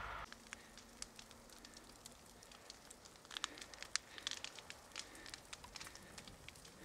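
Forest fire burning through undergrowth: irregular sharp crackles and pops of burning wood over a faint hiss, coming thicker from about three seconds in. A steady rumble cuts off right at the start.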